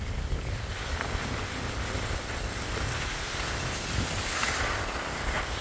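Wind buffeting the microphone with a low rumble, under a steady hiss that swells about four seconds in.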